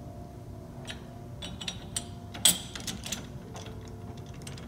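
Chuck key turning in the jaw screws of a four-jaw lathe chuck, each jaw being adjusted independently: a few scattered metallic clicks and knocks, the loudest about two and a half seconds in.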